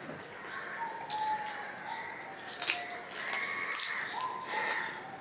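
Close-up eating sounds: a man chewing a handful of rice and fried hilsa fish, with a few sharp, wet mouth clicks and smacks, the loudest near the middle.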